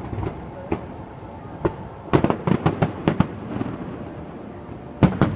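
Aerial fireworks shells bursting in a series of sharp bangs: a few single reports in the first two seconds, a rapid cluster of about eight around two to three seconds in, then two more near the end.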